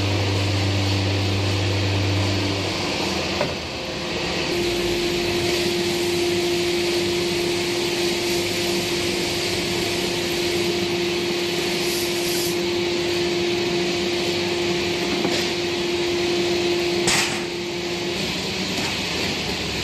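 Hydraulic press machinery running with a steady hum and hiss and a held tone. A deeper hum drops away about three seconds in, and a short knock sounds near the end.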